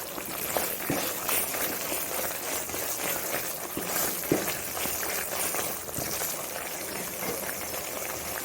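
Thick pumpkin halwa of grated pumpkin, sugar and ghee bubbling and sizzling in a pan as it is stirred, with occasional clicks and scrapes of the spoon against the pan.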